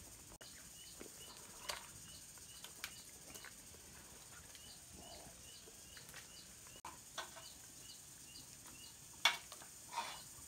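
Scattered knocks and clatter as peeled bamboo shoots are tossed into a large metal cooking pot and a metal ladle works among them, the two loudest knocks near the end. A faint, evenly repeating chirp runs underneath.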